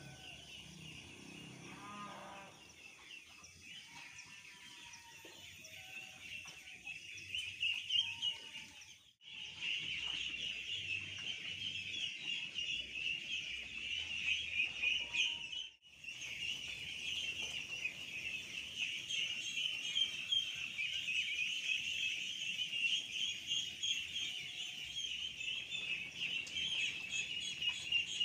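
A large flock of two-week-old ducklings peeping, many high calls overlapping into a dense, continuous chorus that grows louder about a third of the way in and cuts out briefly twice.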